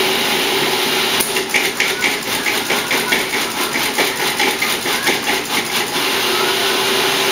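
Food processor motor running steadily while chopping chunks of sofrito vegetables. Through the middle there is a rapid knocking of pieces thrown against the bowl by the blade.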